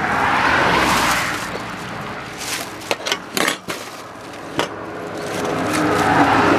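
Two vehicles pass on the road, each a rush of engine and tyre noise that swells and fades: one about a second in, the other building toward the end. In between come a few sharp crackles as husks are pulled back from boiled corn ears.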